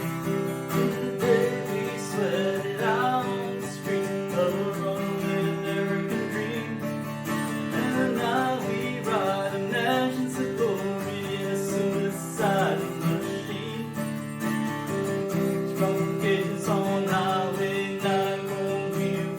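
Music led by strummed acoustic guitar, with a melody line over sustained chords.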